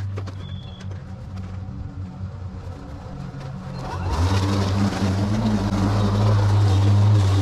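Battery-powered lawn mower running with a steady hum as it is pushed through long, dry grass. About four seconds in it comes close and gets louder, with a harsh hiss of grass being cut and thrown.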